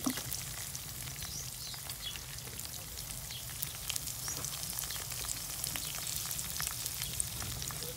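Peanuts, roasted chickpeas, green chillies and sliced onion frying in hot oil in a kadai: a steady sizzle full of fine crackling pops.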